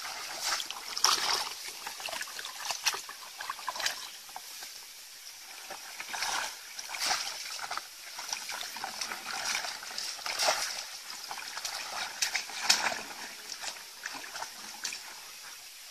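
Shallow paddy water splashing and sloshing in irregular bursts as a bamboo plunge-basket fish trap is lifted and pushed down into it.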